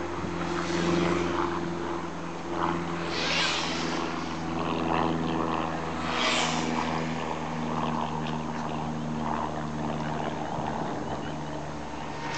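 Schumacher Mi2 electric 1/10 touring RC car driving fast with its new motor. The motor whines as the car runs, swelling into a rushing pass-by about three seconds in, again about six seconds in, and most loudly near the end.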